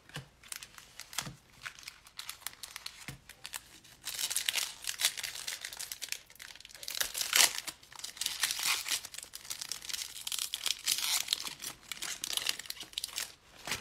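Foil trading-card pack being torn open and crinkled by hands in nitrile gloves: a few light handling clicks, then dense crackling from about four seconds in, with the loudest rip a little past halfway.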